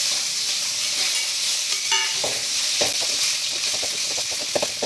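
Chopped onions sizzling steadily in hot oil in a steel kadai, with a steel ladle scraping and clinking against the pan several times as they are stirred.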